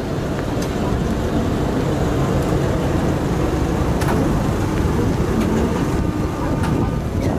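Tram passing close by, with a steady rumble of its wheels on the rails and a couple of light clicks.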